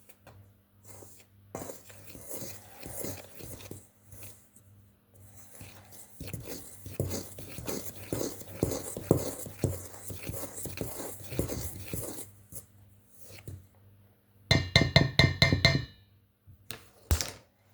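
Flour and salt being stirred in a mixing bowl: a run of irregular scraping and tapping strokes of the utensil against the bowl. Near the end, a loud pitched sound of several held tones lasts about a second and a half.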